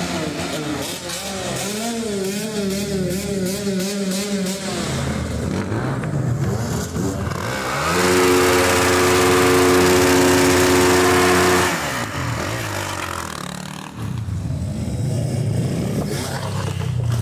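Motocross bike engines revving and idling, rising and falling in pitch. About eight seconds in, one engine is held at steady high revs with a loud hiss for about four seconds, then drops back.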